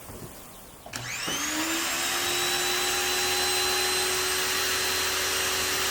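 Active 2.0 electric pressure washer motor starting about a second late, after a small click, then spinning up to a steady high whine. This delayed start is the fault that a damaged bypass valve could cause.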